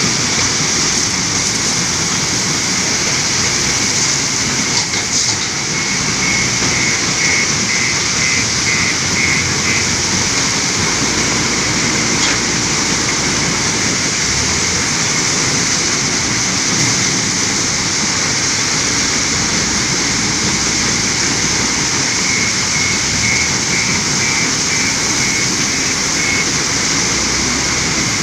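Steady loud din of a working stone crusher plant and a JCB 530-70 telehandler's diesel engine as it loads crushed stone into a tipper truck. A high beeping alarm, about two beeps a second, sounds in two spells, about a fifth of the way in and again near the end.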